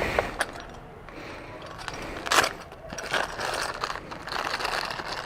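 Tools working on a motorcycle's fittings while nuts are undone: scattered metallic clicks and scrapes, with a sharper clack about two and a half seconds in.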